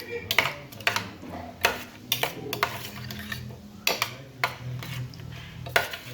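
Metal kitchen utensils clinking and scraping against pots and dishes, about ten irregular sharp knocks, over a low steady hum.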